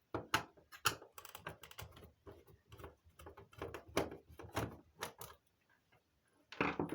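Irregular clicks and knocks of the radio telephone's casing and parts being handled and taken apart, with a short pause about six seconds in and a louder cluster of knocks near the end.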